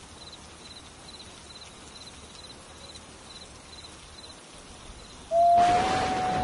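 Faint insect chirping, about two chirps a second. A little over five seconds in, a gray wolf starts a howl: one long, steady, loud note that opens with a burst of hiss.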